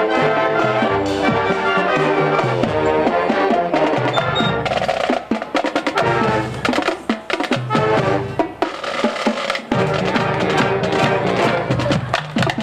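Marching band playing a parade number, brass over a driving drum line. About halfway the horns thin out and the drums carry for a few seconds before the horns come back in.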